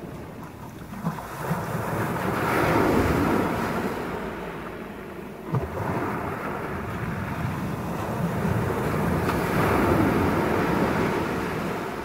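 Small waves breaking and washing up a pebble beach. The surf swells twice, about a quarter of the way in and again near the end, over a low rumble of wind on the microphone.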